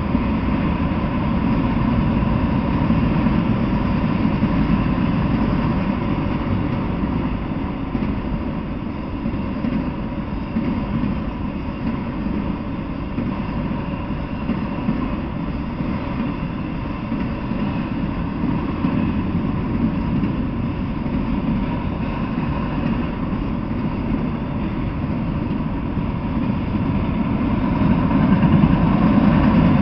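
Freight train of autorack cars rolling past at steady speed: a continuous low rumble of wheels on rail, a little louder near the end.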